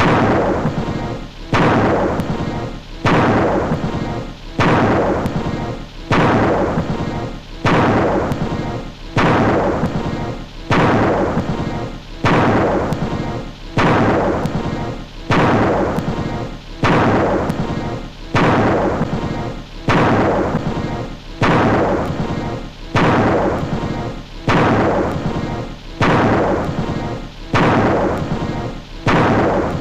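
Cartoon thunderclap sound effect looped over and over, about one sudden crash every second and a half, each one dying away before the next, with music under it.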